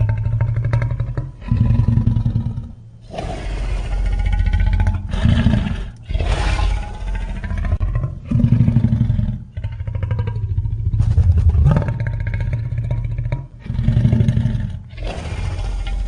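A string of creature growl sound effects for a giant piranha, cut one after another, each a second or so long: a deep rumble under wavering pitched cries.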